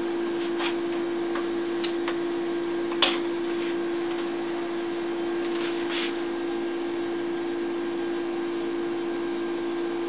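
Steady background hum at one even pitch, with a few light clicks and taps from handling a plastic container. The loudest tap comes about three seconds in.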